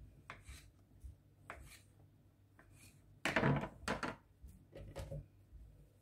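Kitchen knife slicing cherry tomatoes on a bamboo cutting board: a few short cuts with the blade meeting the wood. A little after halfway comes a louder scrape and knock on the board.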